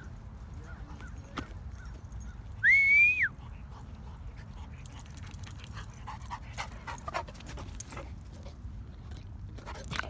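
Black Labrador retriever whining once, a loud high note that rises, holds for about half a second and drops, between spells of panting and soft scuffling.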